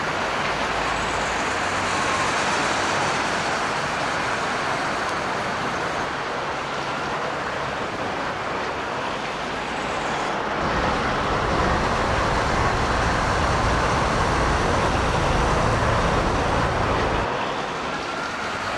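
Road traffic noise: a steady hiss of passing vehicles, with a heavier, louder low rumble from a passing vehicle between about ten and seventeen seconds in.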